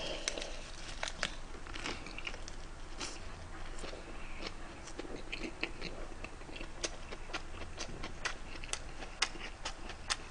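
A man chewing a large mouthful of ssam (a leaf wrap of spicy pork bulgogi and rice), with many short wet mouth clicks and smacks that come more often in the second half.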